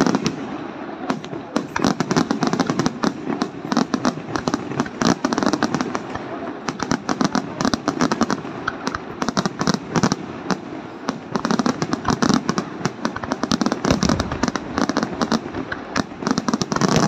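Aerial fireworks display by Luigi Di Matteo: a dense, near-continuous barrage of crackling stars and shell bursts, hundreds of rapid pops and bangs layered over one another.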